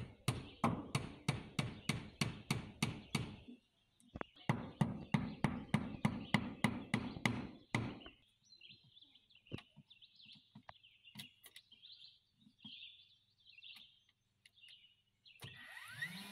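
Claw hammer driving nails into wooden eave trim, two runs of quick, even blows at about three a second with a short pause between them. Birds chirp faintly once the hammering stops. Near the end a DeWalt cordless nailer's motor spins up with a rising hum that then holds steady.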